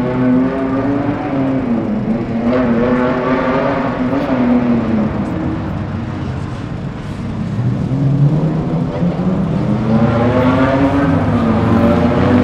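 Classic car engine revving up and down repeatedly as the car is driven through a tight slalom course, the pitch climbing with each acceleration and dropping as it lifts off. It is loudest at the start and again over the last few seconds.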